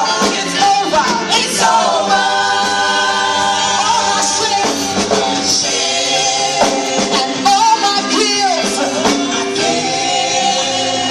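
Church choir singing a gospel song with instrumental accompaniment.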